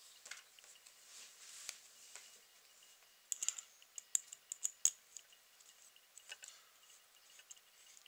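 Hex key clicking against a grub screw in an antenna base as the screw is tightened, a quick run of small sharp clicks about halfway through, with a few scattered ticks of handling around them.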